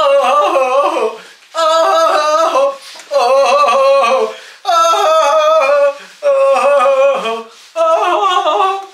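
A man's voice singing a wordless, jingle-like tune in about six short phrases of a second or so each, with brief pauses between them and the pitch bending up and down.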